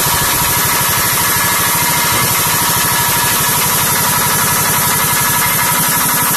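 Pneumatic impact wrench hammering continuously on a wheel hub's axle nut at full speed, a fast rattling stream of blows with a steady whine. The nut does not come free.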